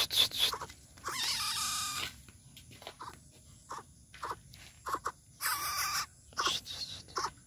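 Javan coucal giving harsh, noisy calls: two longer ones about a second in and about five and a half seconds in, with short sharp clicking sounds between.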